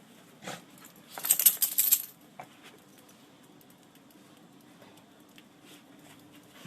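A brief burst of metallic jangling about a second in, with a few light knocks before and after, over a faint steady hum.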